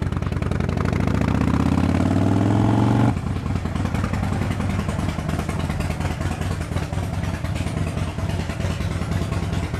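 Harley-Davidson Dyna Low Rider S's Twin Cam 110 V-twin engine accelerating, its pitch and loudness rising for about three seconds. It then drops suddenly and runs on steadily.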